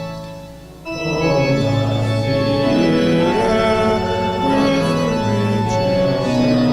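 Organ playing slow, held chords. One chord dies away at the start, and the next phrase comes in about a second in.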